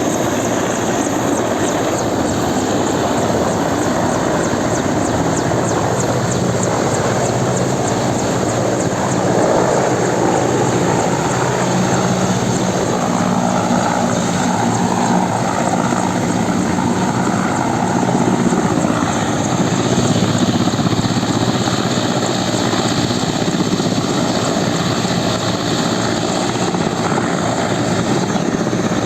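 Helicopter running steadily, a continuous loud rotor and engine noise with a low hum that strengthens briefly through the middle.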